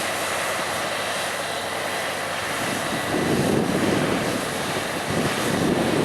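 Claas Lexion 670 combine harvester running steadily as it harvests wheat: an even mechanical drone with a faint thin whine, swelling louder and lower twice in the second half.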